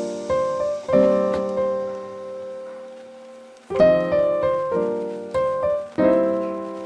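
Background piano music: phrases of struck chords and notes, each phrase left ringing out as it fades.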